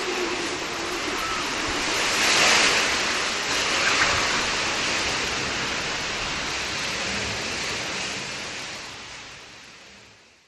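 A steady rushing noise that swells about two and a half and four seconds in, then fades out over the last two seconds or so.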